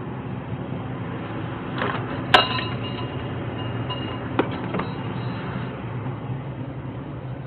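A sharp clink of something hard being knocked, with a short ringing tone after it, followed about two seconds later by two lighter knocks, over a steady low hum.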